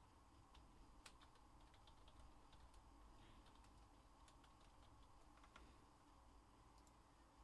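Faint, irregular typing and clicks on a computer keyboard over near-silent room tone.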